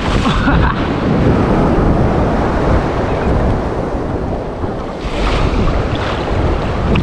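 Ocean surf breaking and washing around a wader standing in the waves, with water splashing close over the microphone and wind buffeting it. The rush is heaviest at the start as a big wave breaks over him, eases off, then surges again about five seconds in as the next wave arrives.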